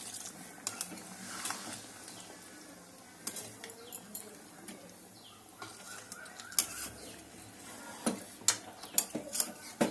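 Metal spatula stirring chicken curry in a metal pan, clinking and scraping against it, with sharp clicks coming more often in the second half.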